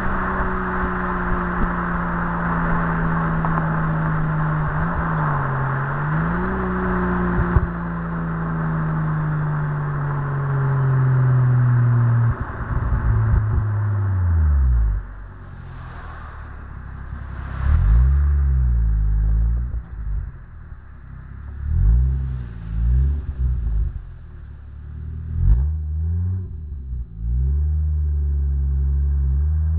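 Stock Toyota Supra engine and exhaust. A steady engine note sinks slowly in pitch for about the first twelve seconds and drops away. Then come several short revs, each rising and falling, every three to four seconds, before the engine settles into a steady note near the end.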